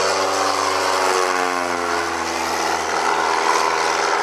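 Radio-controlled Piper Cub model airplane's engine and propeller on a low fly-by. The engine note drops in pitch about a second in as the plane passes, then carries on steadily as it climbs away.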